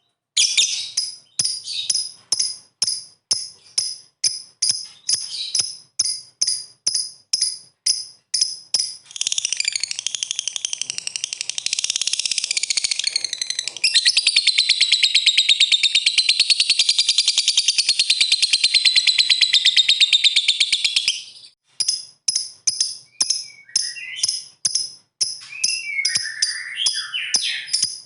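Lovebird calling: repeated high chirps about two a second, then a long, rapid, unbroken chattering trill (the 'ngekek' call) lasting about twelve seconds, then chirps again with a few gliding notes near the end.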